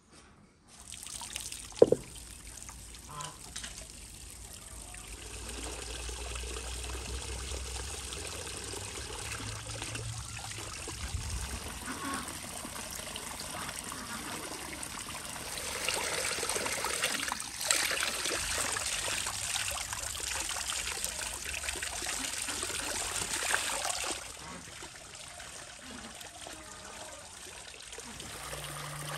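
Water running from a stone spout and splashing into an enamel basin as fresh greens are rinsed under it by hand; it gets louder for several seconds past the middle, when the greens are held in the stream. A single sharp knock about two seconds in is the loudest sound.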